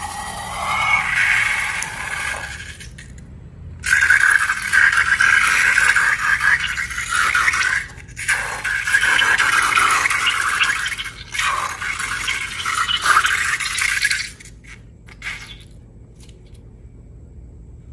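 Scraping and rattling, as of slime-making materials being handled, in two long stretches. It falls away about fourteen seconds in.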